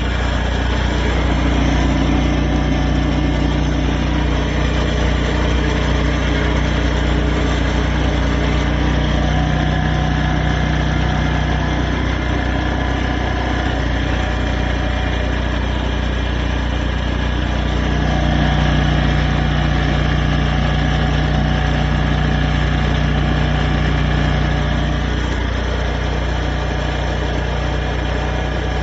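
Engine of a 10 kVA / 300 A welding generator running steadily with a constant hum, swelling slightly for a few seconds twice.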